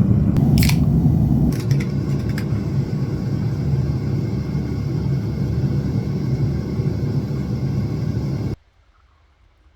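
A loud, steady low rumble with a few sharp clicks or taps in the first couple of seconds, cutting off abruptly near the end.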